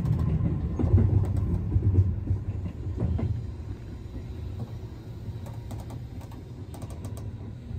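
Keihan Railway electric train running, a low rumble heard from inside the car, loudest for the first three seconds and then quieter.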